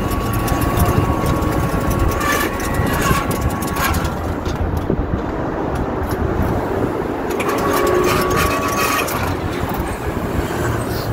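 Shopfront roller security grille rolling up, a steady mechanical rumble.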